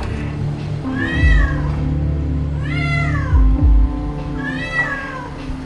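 A domestic cat meowing three times, about two seconds apart, each call rising and then falling in pitch. Background music with deep drum-like beats runs underneath.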